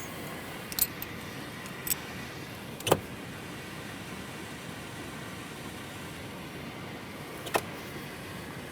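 Steady hiss of water running through the RV black tank's flush line, with five short sharp clicks scattered through it: tools being handled.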